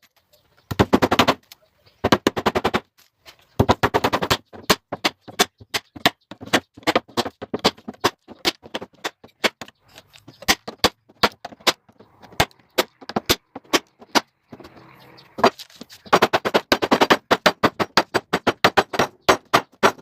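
Sharp shots of a nail gun fastening wooden strips, fired in quick runs and single strikes several times a second.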